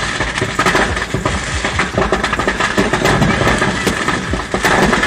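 A fireworks stand's stock burning and going off: dense, continuous crackling and popping with many sharp cracks scattered through it.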